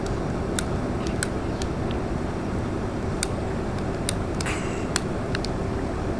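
Steady low outdoor rumble, with scattered sharp clicks and a brief rustle of handling while a bee smoker packed with newspaper and wood chips is being lit.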